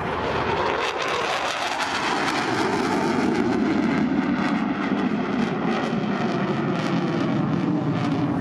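Eurofighter Typhoon FGR4's twin EJ200 turbofans, a loud steady jet rumble with a fine crackle as the fighter flies its display; it builds over the first few seconds, then holds.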